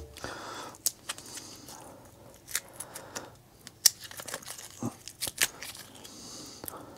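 Powder coating being scraped and peeled off a lead carp weight: irregular small scratches and sharp clicks.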